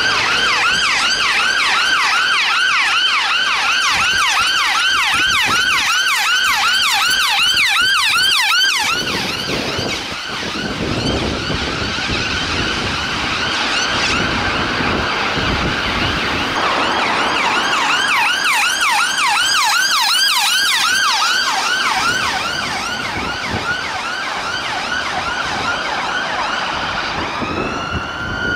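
Emergency vehicle siren on a fast yelp, its pitch sweeping up and down several times a second. A rush of engine and road noise comes up through the middle. Near the end the siren changes to a slow wail.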